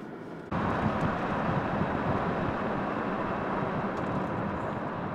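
Steady rushing road and wind noise of a vehicle on the move, starting abruptly about half a second in and slowly fading toward the end.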